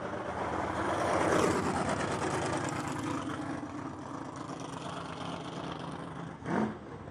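Drag cars' engines idling during warm-up, swelling louder about a second in and then easing back. A short sharper sound comes near the end.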